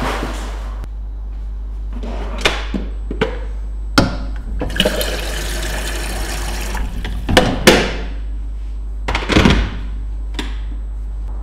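Kitchen tap water running into a plastic electric kettle for about two seconds, with knocks and clatters of the kettle being handled before and after, and a couple of heavier knocks as it is set back on its base near the end.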